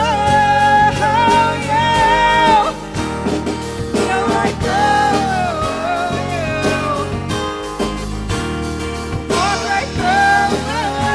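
Rock song with a singer's voice over guitar and drums.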